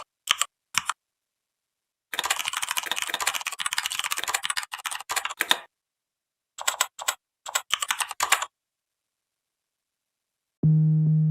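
Computer keyboard being typed on: a few single key clicks, then a long run of fast typing, a pause, and a shorter burst of keystrokes. Near the end a sustained low musical note with overtones starts and slowly fades.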